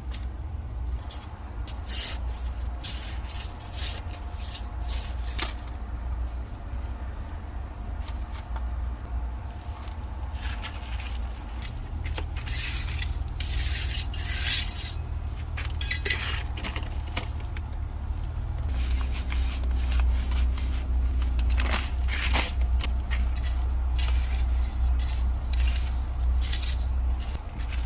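Irregular scraping and clinking of hard objects being handled and set down, over a steady low rumble.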